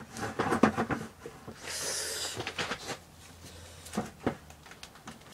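Handling noises in a small room: scattered light knocks and clicks with some rustling, a brief hissing rush about two seconds in, and two sharper knocks near the end.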